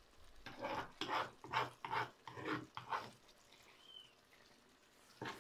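An animal calling: a run of about six short calls, roughly two a second, over the first three seconds, with one more call near the end.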